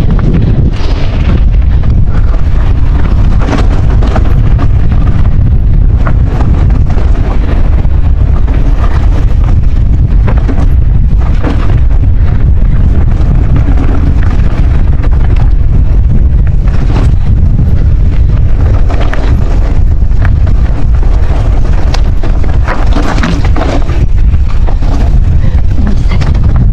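Strong wind buffeting the microphone: a loud, constant low rumble, with brief sharper gusts and rattles scattered through it.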